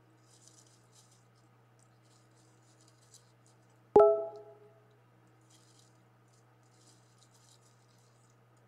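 Raccoon foraging in dry leaves and pine needles, with faint scratchy rustling, over a steady low hum. About four seconds in comes a single sharp metallic clink that rings briefly at several pitches.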